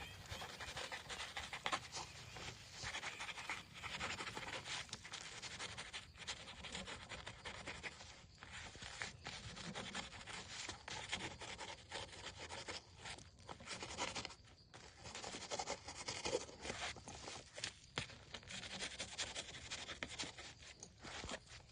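Irregular rubbing and scraping from hand work on the trap materials, with scattered small ticks.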